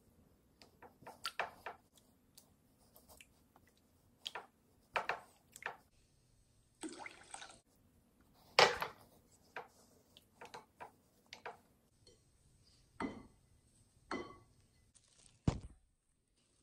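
A spatula stirring a thin mix of water and clear shampoo in a glass bowl: irregular sloshes, drips and squishes with quiet gaps between, the loudest slosh about halfway through.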